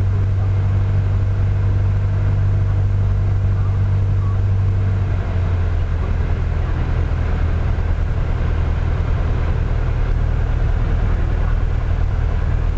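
Piston engine and propeller of a single-engine light aircraft in flight, a loud steady drone heard inside the cockpit. About five seconds in, the engine note shifts a little lower.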